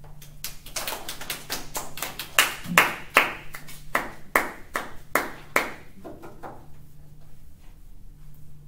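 A few people clapping hands for about five seconds, the claps loudest in the middle and then dying away.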